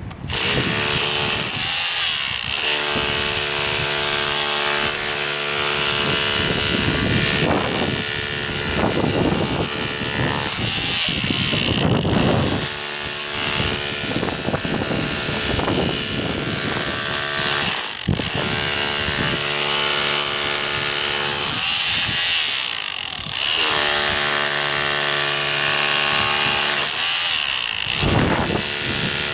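A power tool or motor-driven machine running steadily with a constant hum, dropping off briefly a few times and picking up again.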